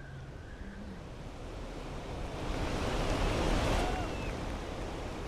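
Ocean surf breaking: a rushing noise swells to a peak about three and a half seconds in, then eases off.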